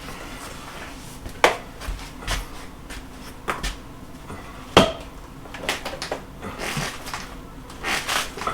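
Irregular knocks, clatters and scraping of demolition work on wall paneling and framing, with two sharp knocks loudest, about a second and a half and about five seconds in.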